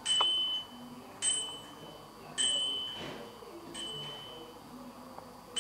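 A high chime tone with a bright overtone above it, struck four times at about 1.2-second intervals, each note sharp at the start and fading away.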